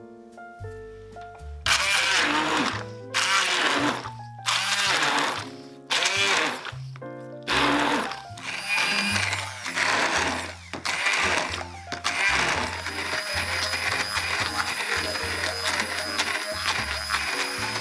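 Immersion blender puréeing canned pineapple chunks, run in short bursts of about a second at first, then held on steadily for the last five seconds or so with a high motor whine. Background music with a bass line plays underneath.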